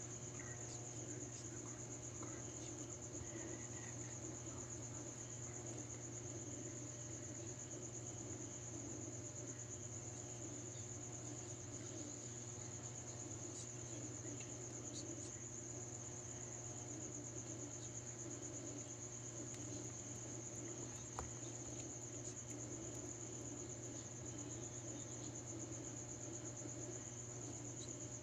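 Crickets trilling steadily and high-pitched, with a faint low hum beneath and a single soft click about three-quarters of the way through.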